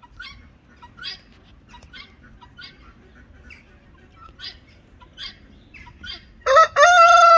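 Short high chirping bird calls repeat about twice a second. Near the end a rooster breaks into a loud, long crow.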